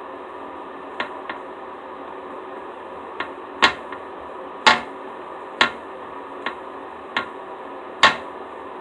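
Slime being squeezed and worked by hand, giving about ten sharp pops and clicks at irregular intervals, the loudest one near the end.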